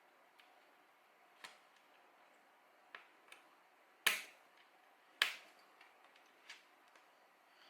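Sharp plastic clicks and snaps from 3D-printed parts being handled: a few light ticks, then two loud snaps about a second apart near the middle, then fainter taps.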